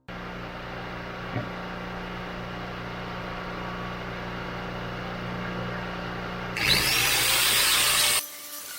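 Electric abrasive power tool running with a steady hum. About six and a half seconds in, it bites into an aluminum bronze casting with a loud grinding noise for about a second and a half, then drops off suddenly.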